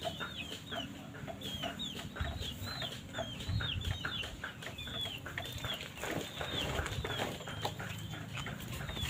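A bird chirping in the background: a steady run of short high chirps, about two a second.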